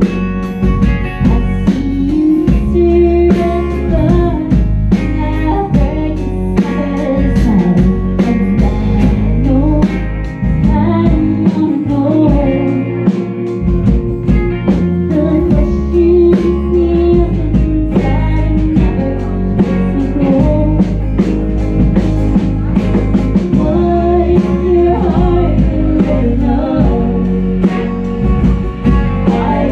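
Live band playing a song: a woman sings over acoustic guitar, electric guitar and a drum kit. The low end drops out briefly about twelve seconds in.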